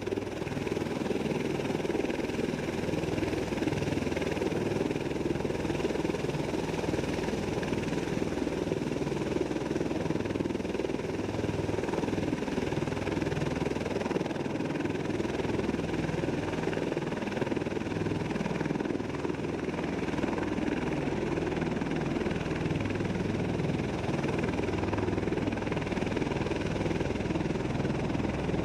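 V-22 Osprey tiltrotor's engines and proprotors running, a steady drone that holds the same level throughout.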